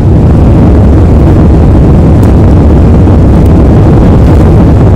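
Loud, steady roar of an airliner's jet engines and airframe heard from inside the passenger cabin, a dense low rumble with no distinct tones.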